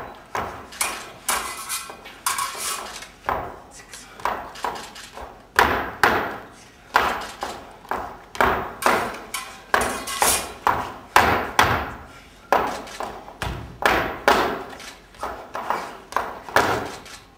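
Sharp percussive strikes beating out a flamenco rhythm, about one or two a second, each with a short echo off the hall.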